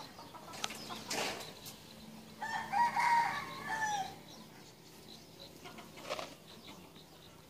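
A rooster crows once, about two and a half seconds in, in a call of several short pitched segments lasting under two seconds. A few faint clicks come before it.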